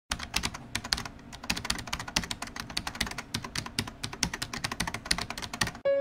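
Fast typing on a computer keyboard: a quick, irregular run of key clicks, several a second, that stops abruptly near the end as music begins.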